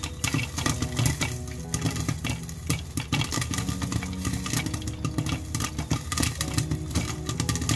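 Popcorn popping in oil in a glass-lidded frying pan: a dense, irregular run of sharp pops, many a second, with the pan near full.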